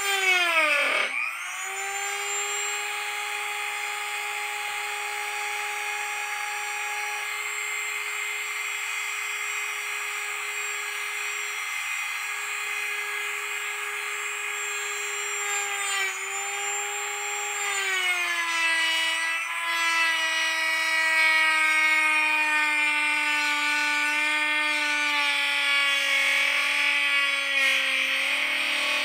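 Dremel rotary tool on a flex-shaft extension spinning a 1-inch cutoff wheel through 1/8-inch smoked plexiglass, a steady high whine. The whine dips sharply and recovers about a second in. In the last third its pitch sinks steadily as it grows louder, the motor slowing under the load of the cut.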